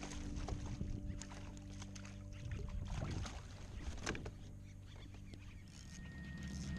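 Water splashing around a kayak hull as a hooked redfish thrashes at the surface, with scattered knocks and clicks. Background music fades out in the first half, and another piece of music starts near the end.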